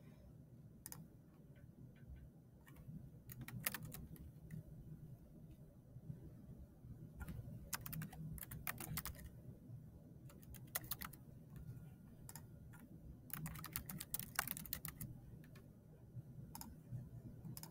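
Typing on a computer keyboard: quiet keystroke clicks in several short bursts, with pauses between them.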